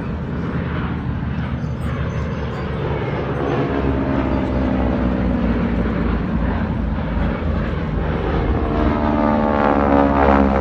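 Radial piston engines of an FM-2 Wildcat and T-6 Texans flying by in formation. The engine drone grows steadily louder as the planes approach and is loudest near the end.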